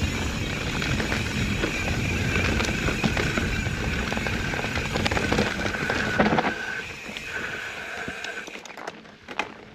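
Mountain bike riding over a dirt trail: tyres rumbling and the bike rattling over roots and rocks, with the rear hub's freewheel buzzing steadily while coasting. The rolling noise drops off after about six and a half seconds as the bike slows.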